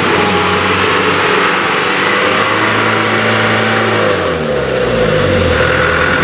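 Huina radio-controlled dump truck driving in thick mud, its motor and drivetrain running steadily with the pitch shifting up and down about four seconds in. The truck is bogged down and struggling for grip.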